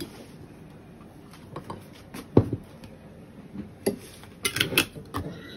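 Glass jar and its plastic screw lid being handled on a table: scattered light knocks and clicks as the lid goes on and the jar is set down on a wooden cutting board. The loudest knock comes about two and a half seconds in, and a quick run of clicks near the end.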